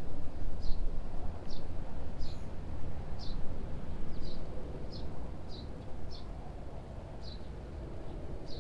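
A small bird calling over and over, one short high chirp roughly every three-quarters of a second, over a steady low rumble.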